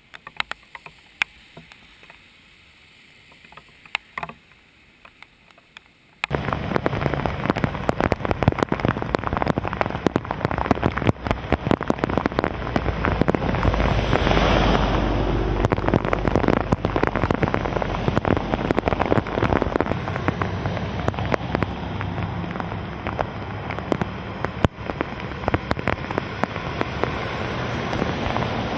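Scattered raindrop ticks over a quiet background for about six seconds, then a sudden jump to heavy tropical-storm rain pouring on a flooded road, with vehicles driving through the standing water and throwing up spray. The sound swells loudest about halfway through as a car's splash passes.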